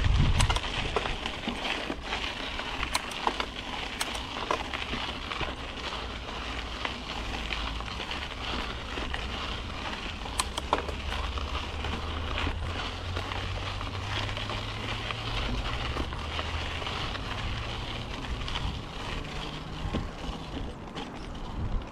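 Yeti SB5 mountain bike rolling along a dirt trail: a steady rush of tyre and trail noise with scattered clicks and rattles from the bike, over a low hum that grows stronger in the second half.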